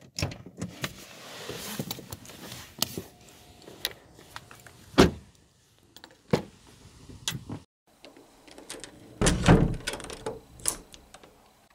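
A car door unlatched and opened, then shut with a sharp thump about five seconds in, with keys jingling and clicking. Then a house door's knob rattles and the door is opened, with a loud knocking clatter.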